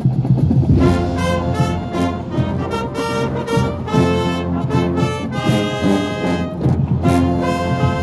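Marching band's brass section playing loud, accented chords over low brass, live on the field; the full brass comes in about a second in.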